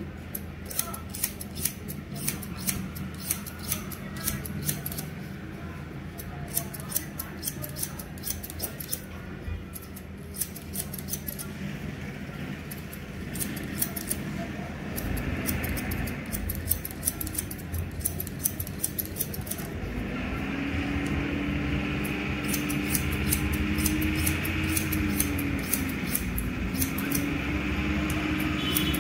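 Steel hairdressing scissors snipping through long hair in runs of crisp cuts, about two a second, with short pauses between runs.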